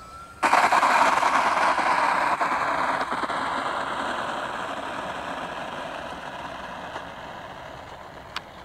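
Avios C-130 Hercules RC model's four electric motors and propellers whirring as it rolls out on the runway after touchdown. The whir comes in abruptly about half a second in and fades steadily as the plane slows, with a single sharp click near the end.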